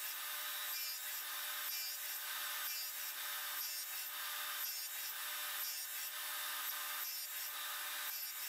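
Radial arm saw running with a steady hum while its blade cuts a shallow 1/8-inch dado in plywood. The saw is drawn back and forth across the board, and the cutting swells and fades about once a second.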